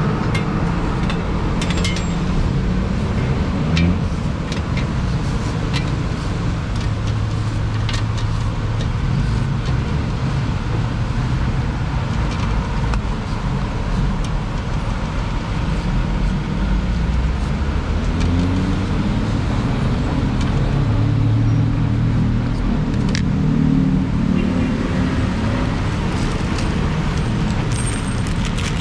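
Road traffic: vehicle engines running and passing close by in a steady drone whose pitch shifts as vehicles speed up, with scattered light clicks and taps over it.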